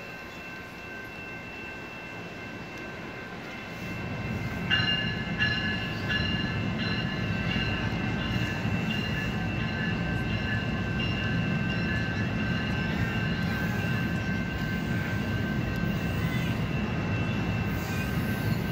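Exo commuter train of bilevel passenger coaches rolling past close by: a low rumble that swells about four seconds in. About a second later a high, steady metallic squeal from the train's wheels joins in and carries on, with scattered clicks.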